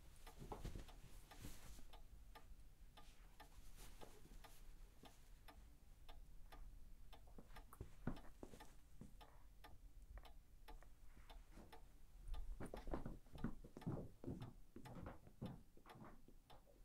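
Faint, steady ticking of a clock, with a run of louder low thuds in the last few seconds.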